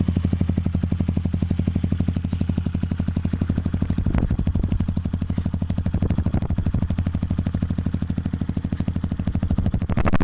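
Yamaha WR155's 155 cc single-cylinder engine idling steadily through an aftermarket Norifumi exhaust pipe, with an even, rapid exhaust beat.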